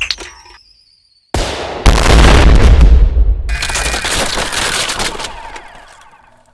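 Action sound effect of an explosion. A short burst comes in about a second and a half, then a loud blast with a deep rumble and crackle that dies away over about four seconds.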